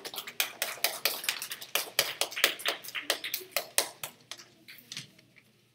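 A small audience clapping in a scattered patter of separate claps that thins out about four seconds in and stops a second later.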